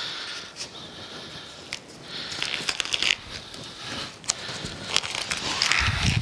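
Packing tape pulled off its roll in two longer noisy stretches, about two and a half seconds in and near the end, and pressed onto a cardboard box, with crackling and sharp clicks from handling the cardboard.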